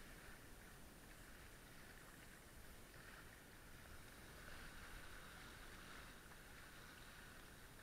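Faint, steady rush of water and wind as a small sailing catamaran moves through choppy water, swelling slightly about halfway through.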